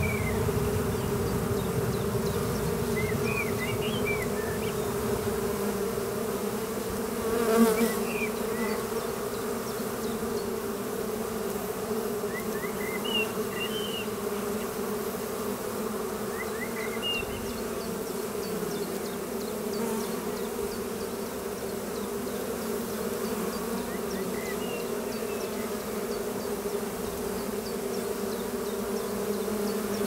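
Honeybees at a hive entrance, a steady buzzing hum of many bees, the sound of a calm, busy colony. About a quarter of the way in there is one brief louder swell of buzzing.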